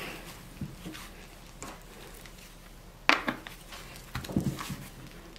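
Plastic vent caps being pressed back into the cell openings of a 12-volt deep-cycle lead-acid battery: a few light clicks, one sharp snap about three seconds in, then a short cluster of softer knocks.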